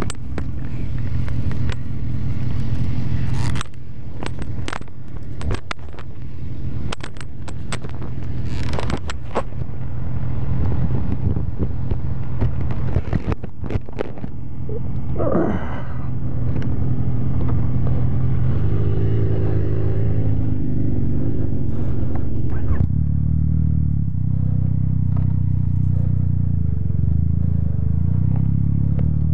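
Motorcycle engine running at low speed under the rider, its note holding low and steady, with several sharp knocks in the first half.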